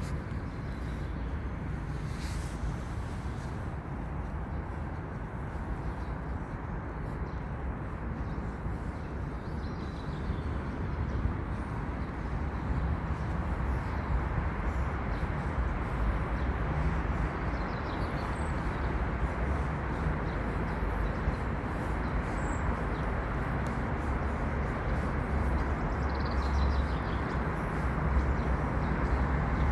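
Steady low rumbling background noise that grows a little louder toward the end, with a few faint, brief high bird chirps above it.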